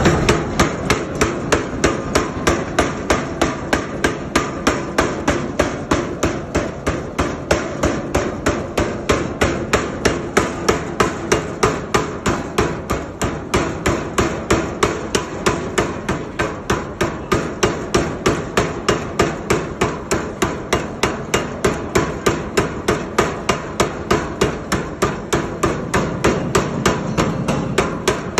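Power hammer striking in a steady, even rhythm, about three blows a second without a break.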